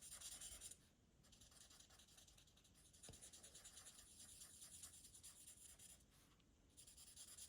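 Faint scratching of a marker nib stroking back and forth across card stock as an image is coloured in, with two brief pauses.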